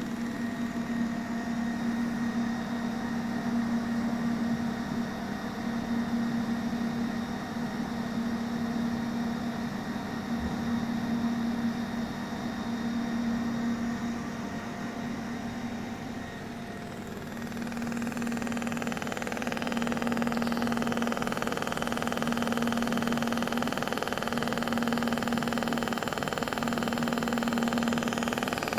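ProArc LS-15 TIG seam welding machine running: a steady hum throughout, joined about two-thirds of the way through by a louder, even hiss.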